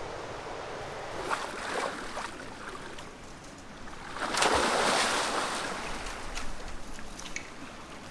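A person jumping into the river: one big splash about four seconds in that swells and fades over a second or so, over the steady rush of flowing river water.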